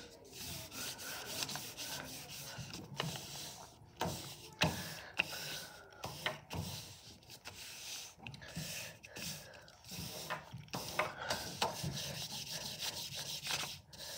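Hands smoothing and sliding a large sheet of brown paper over a wooden tabletop: the paper rubs and rustles in uneven strokes, with a few sharper crackles along the way.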